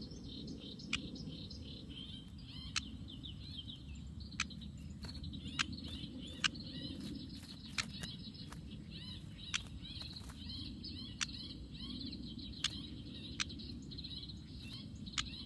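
Kerak basi (reed warbler) singing: a continuous rapid chatter of short high chirps, punctuated about once a second by sharp, loud clicking notes. A steady low rumble of background noise runs underneath.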